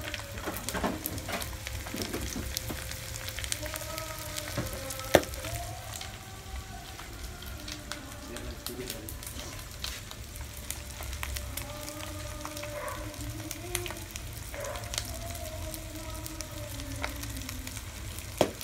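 Pieces of pork mesentery (chicharon bulaklak) deep-frying in oil in a wok: a steady sizzle with many sharp crackles and pops, one much louder sharp crack about five seconds in and another near the end.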